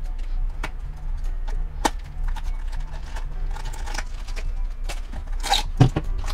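Small cardboard blind box being opened by hand: scattered light clicks and scrapes as the flap is pulled open and the foil-wrapped figure and a small plastic bag are drawn out, then a rustle and a sharp thump near the end as the foil bag is dropped onto the table.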